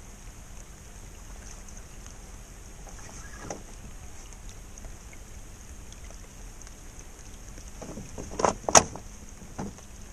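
Small fishing boat drifting on a river: steady noise of water and light wind around the hull. Near the end comes a cluster of sharp, loud knocks and thuds against the boat as the angler shifts his footing while playing a fish on a bent spinning rod.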